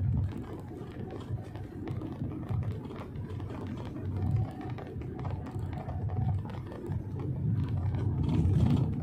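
Low, steady rumble of a Wuling Almaz SUV driving on the road: tyre and engine noise, swelling slightly near the end.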